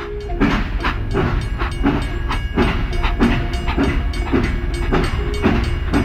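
Battery-powered toy steam locomotive running on a plastic track, giving off a fast, even rhythmic chugging.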